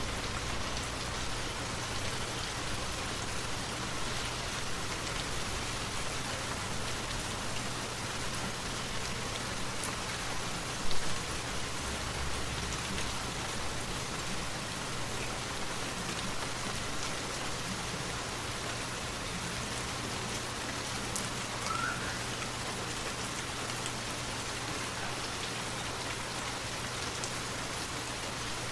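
Steady rushing and splashing of a forest waterfall. A brief low thump sounds about eleven seconds in, and a faint short chirp about two thirds of the way through.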